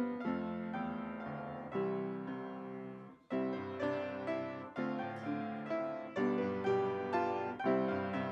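Solo piano music: chords struck one after another, each left to ring and fade, with a brief break about three seconds in.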